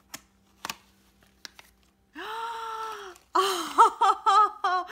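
A few soft clicks and taps of a paper box being opened, then a woman's long wordless "ooh" of delight about two seconds in, followed by a string of short, excited high-pitched cries.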